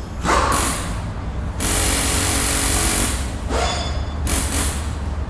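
Power tool running in several stretches of a second or so, each changing abruptly to the next, over a steady low rumble.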